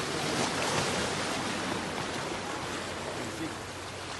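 Small waves washing and breaking over shoreline rocks, a steady rush of water.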